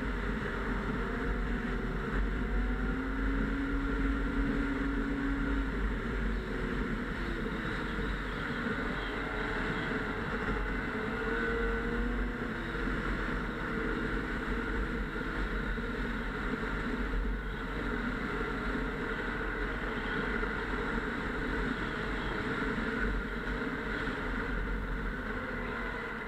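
Snowmobile engine running steadily during a ride, its pitch rising and falling a little as the throttle changes, over a heavy low rumble.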